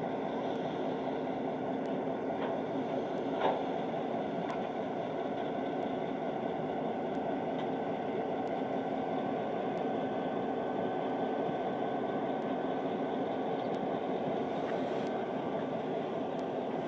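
Steady engine idling drone, heard from inside a parked car, with a faint steady hum running through it. A single light click comes about three and a half seconds in.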